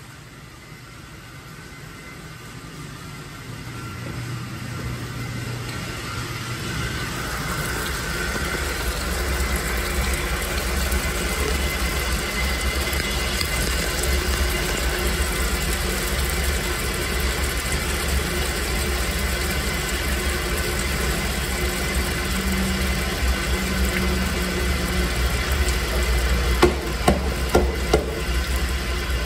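Electric grain mill running steadily as it crushes malt, a low mechanical hum that grows louder over the first several seconds, with a few sharp knocks near the end.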